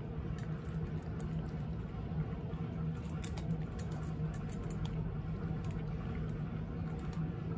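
Cat crunching dry kibble, as irregular small crunches and clicks, over a steady low hum.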